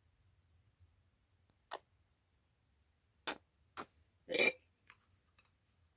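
A handful of short, sharp clicks and knocks, about five in all, the loudest a little over four seconds in: the plastic PVA glue bottle being handled and withdrawn after pouring.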